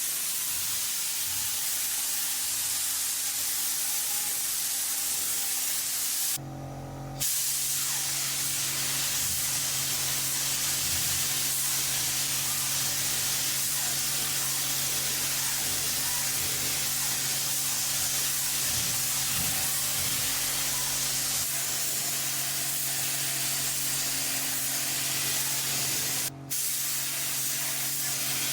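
Continuous hiss of paint spraying onto the model, with a steady hum underneath. The spray cuts out for about a second some six seconds in and blips off again briefly near the end.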